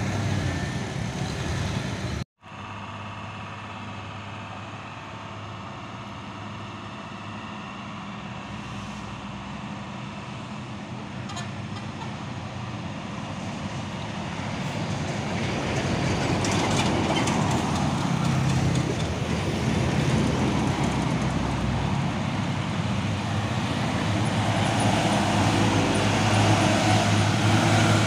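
Road traffic: engines of lorries and cars moving on the road, growing louder in the second half as a diesel lorry comes up and passes close, its deep engine hum the loudest part near the end. The sound cuts out briefly about two seconds in.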